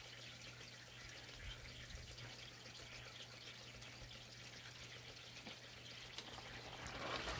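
Faint, steady hiss of a running lawn sprinkler, with a low steady hum underneath.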